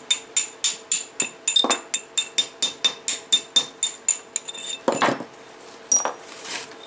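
Hammer striking the steel differential carrier of a 1987 Suzuki Samurai's rear axle: about twenty quick, ringing metal-on-metal blows at roughly five a second. They stop about four and a half seconds in, followed by a duller knock and a light clink.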